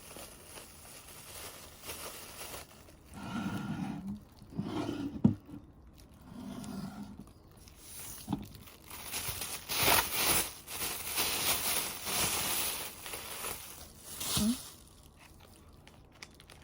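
Plastic wrapping and packaging crinkling and rustling as items are lifted out of a gift box, in irregular bursts with some tearing, busiest from about nine to thirteen seconds in. A single sharp knock about five seconds in.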